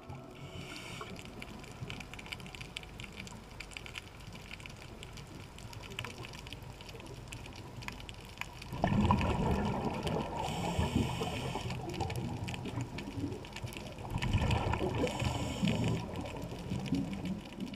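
Underwater sound at a coral reef: a quiet haze with fine clicks, then two louder rushes of gurgling air bubbles, about nine and fourteen seconds in, each lasting a few seconds, like a scuba diver exhaling through a regulator.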